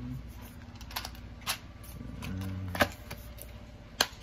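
Small hand tools and parts being handled, with four sharp clicks at irregular intervals and a brief low hum in the middle.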